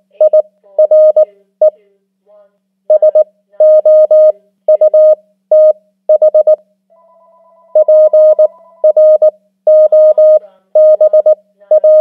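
Morse code (CW) practice tone sent at 18 words per minute: a single steady beep keyed into short dits and long dahs, in letter groups with brief gaps between words, spelling out "fire", "south" and the start of "problem". A faint warbling tone sounds in a pause about seven seconds in.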